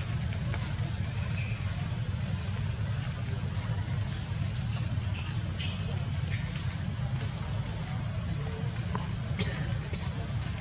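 Steady, high-pitched chorus of insects over a low, steady rumble.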